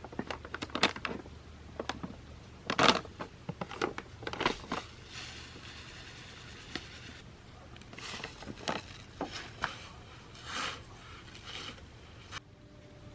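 Handling noises from measuring out cure spices: sharp clicks and taps of containers and utensils, with crinkling and scraping strokes in between.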